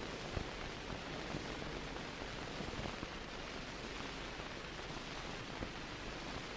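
Steady hiss of an old film soundtrack, with a few faint clicks.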